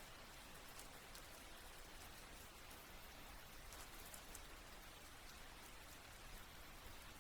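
Faint steady rain recording: an even hiss with scattered light drop ticks.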